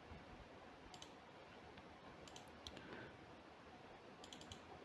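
A few faint computer mouse clicks over near silence: one about a second in, a quick cluster around two and a half seconds, and another cluster near the end.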